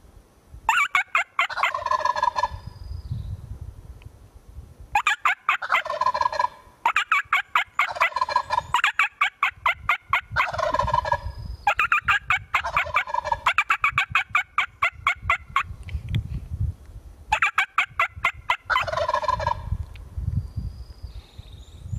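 Wild turkey tom gobbling over and over: about seven rapid, rattling gobbles, each a second or two long, with short pauses between.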